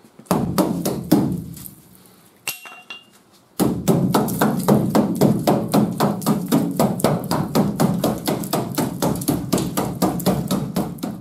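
Pneumatic air hammer rapidly hammering through rusted steel along a pickup's wheel arch lip, cutting out the rotten metal. A short burst comes first, then a pause with a brief blip. About three and a half seconds in it starts again and runs on steadily.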